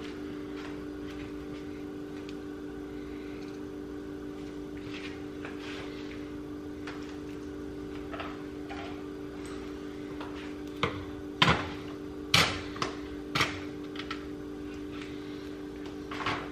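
Steady low kitchen hum made of two tones, with several sharp knocks and clatters of things being handled on the counter, most of them about two-thirds of the way through and one more near the end.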